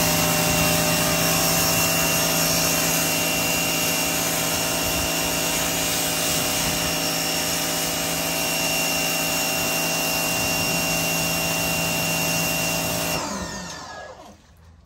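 Pressure washer running steadily, a hum over a hiss, then shutting off about thirteen seconds in, the motor winding down.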